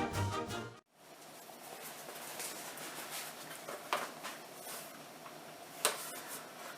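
Orchestral music with brass cuts off abruptly about a second in, leaving faint room noise with a couple of light clicks or knocks.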